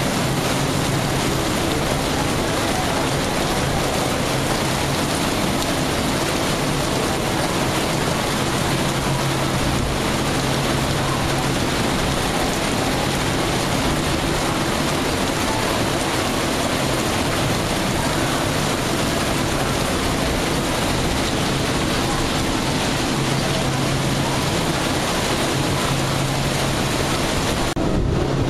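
Heavy thunderstorm rain pouring down and splashing on wet pavement, a steady hiss, with a low hum underneath that fades and comes back.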